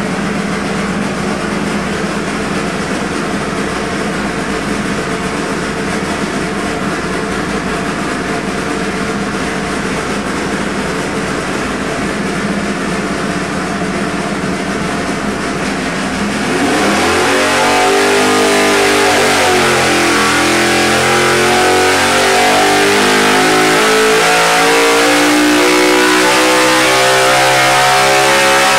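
358-cubic-inch small-block Chevy V8 race engine under load on an engine dyno, running steadily at about 2,800 rpm. About sixteen seconds in it gets louder and opens into a pull, its pitch dipping briefly and then climbing steadily to about 8,000 rpm.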